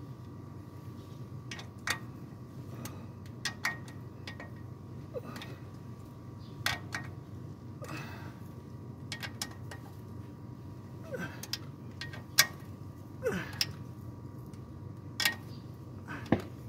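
Ratchet wrench on a long socket extension turning the bolts of the balancer shaft housing under a Toyota 2AZ-FE engine, clicking in short irregular runs over a steady low hum.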